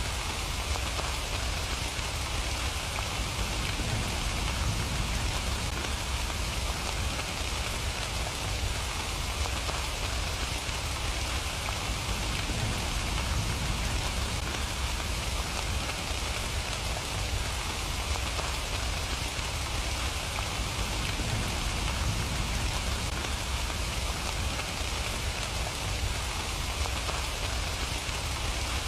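Steady rain falling, an even pattering hiss with a low rumble beneath it, unchanging throughout.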